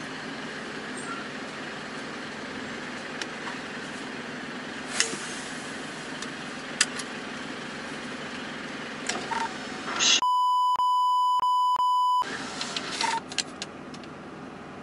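Steady hum of a Volvo truck heard inside the cab, with a few light clicks. About ten seconds in, an edited-in beep tone plays for about two seconds with all other sound cut out beneath it, then the cab hum returns.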